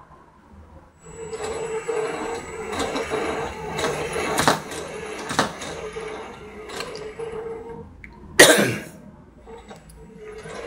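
Small Lego WeDo motor running with a steady whine, driving the Lego goalkeeper back and forth through its gearing, with plastic clicks and knocks from the mechanism. The motor goes quiet at the start and again about eight seconds in, where a short, loud burst, like a cough, is the loudest sound.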